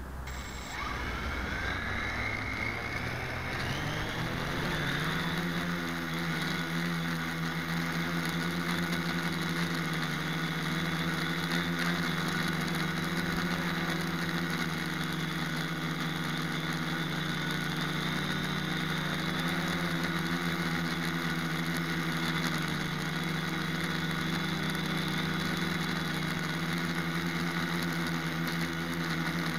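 A Deadcat-frame quadcopter's electric motors and propellers spinning up with rising whines, then running at a steady hover pitch through Turnigy Plush ESCs flashed with heli firmware, heard close from the craft's own camera.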